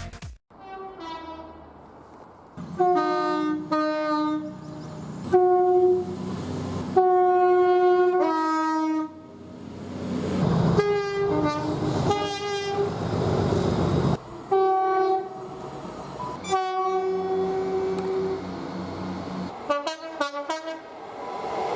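British train horns, each a two-tone blast stepping from a high note to a lower one, sounded repeatedly by several passing trains. Between blasts there is the noise of a train running by.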